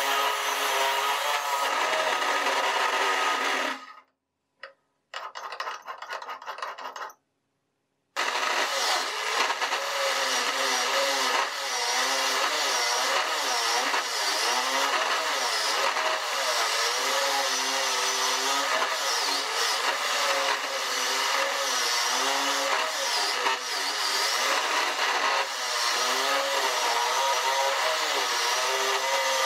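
Angle grinder rigged as a small wood lathe, its motor running with a steady whine while a chisel scrapes a spinning wooden dowel, the pitch wavering as the cut loads the motor. The sound drops out about four seconds in and comes back about four seconds later.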